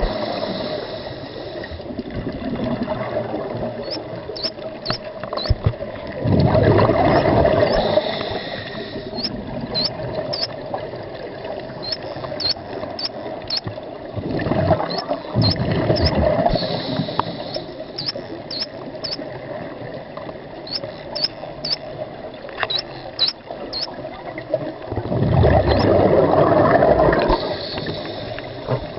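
Underwater ambience recorded on a diver's camera: exhaled scuba bubbles rush loudly three times, roughly every nine to ten seconds, each for about two seconds, over a steady underwater hiss. Short, high, rising chirps come in clusters between the bubble bursts.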